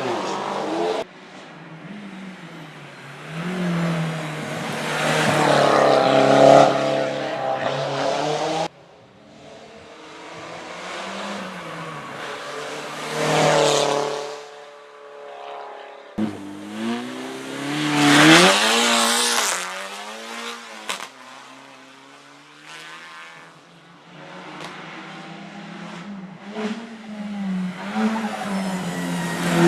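Hill climb race cars accelerating hard up the course past the listener, each engine's pitch climbing and then dropping at every gear change. Several cars are heard in turn, the sound cutting abruptly from one to the next, with the loudest passes about six and eighteen seconds in.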